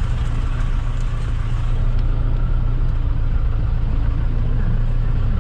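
Jeep engine running under way, a steady low drone with road noise.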